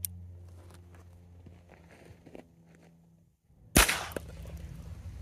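A single shot of a homemade .22LR ratshot (shotshell) round from a revolver, one sharp crack about four seconds in. A few faint clicks come before it.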